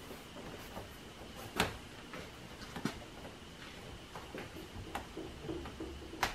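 Hands handling and pressing a plastic window rain guard against the camper's wall: scattered light clicks and taps, the sharpest about a second and a half in and another at the very end, over a faint steady high hum.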